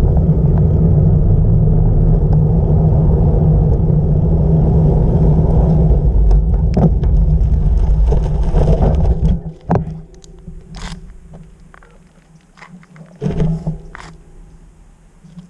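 Wind rushing over a bike-mounted camera's microphone, with tyre and road rumble, during a fast bicycle descent; it drops off suddenly about nine and a half seconds in as the bike comes to a stop. After that come a few scattered clicks and rustles.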